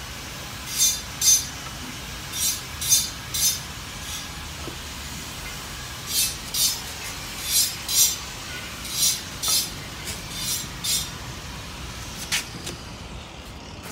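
Short scraping or rubbing strokes, mostly in pairs, made by hand work against the clutch cover inside a truck's clutch bell housing. A few sharp clicks come near the end.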